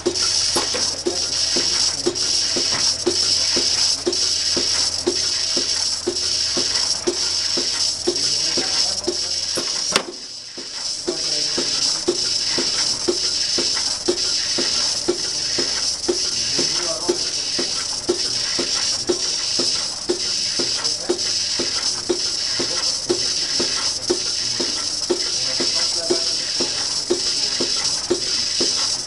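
Lely Astronaut 4 robotic milking machine running, its pulsation beating about twice a second over a steady hiss of vacuum air. A sharp click comes about ten seconds in as a teat cup is released and retracted, and a low hum stops with it.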